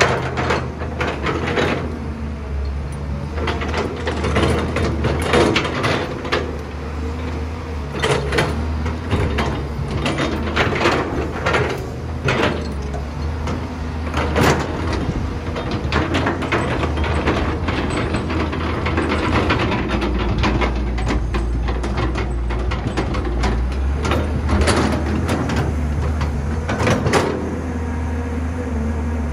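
Caterpillar 320B hydraulic excavator's diesel engine running steadily while the bucket digs and scrapes through dry soil, with frequent knocks and clatters of the steel bucket and tumbling clods. The engine's hum grows heavier for several seconds in the second half, as under harder digging load.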